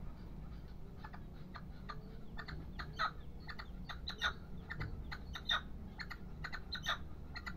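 Young caged male red-legged partridge calling: a run of short, sharp notes, sparse at first, then coming thicker with a few louder ones. Its owner judges its song a little immature, like a youngster's, though it is a sure male.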